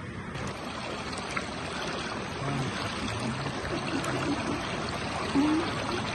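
Water running with a steady rush, like a stream or trickle.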